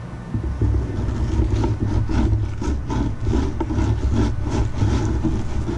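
Bubba electric fillet knife running and sawing through a tilefish fillet as the skin is cut away: a steady motor hum with an uneven buzz that rises and falls with the strokes of the blade.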